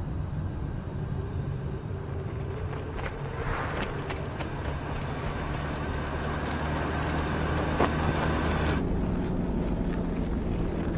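Vehicle engine running with a steady low drone, as a film sound effect. There are a few short knocks about four seconds in and near eight seconds, and a hiss on top cuts off suddenly near nine seconds.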